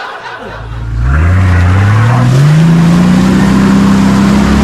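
Car engine revving up, loud: the pitch climbs over about two seconds from just after the start, then holds steady at high revs.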